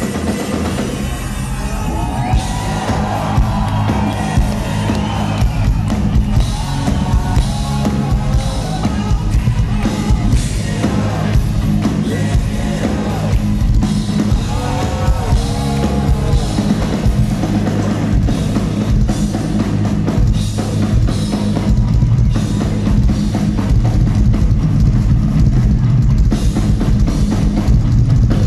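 Live rock drum-kit solo: a fast, dense stream of bass drum strokes under toms and cymbals, played without pause.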